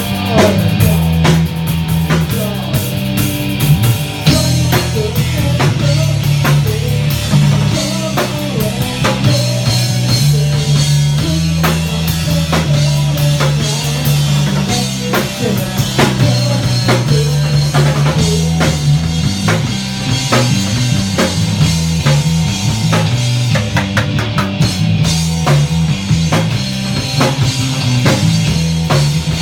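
Rock music: a band with drum kit, bass and guitar playing steadily.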